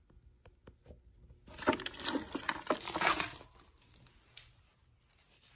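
Plastic vacuum-sealer bag crinkling as the sealed bag is picked up and handled, starting about a second and a half in and lasting about two seconds, after a few faint clicks.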